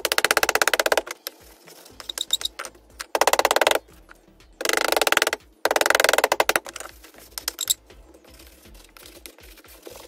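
Rubber mallet ramming casting sand into a wooden moulding flask: four short bursts of rapid, evenly spaced blows, with quieter scattered knocks between them and in the last few seconds.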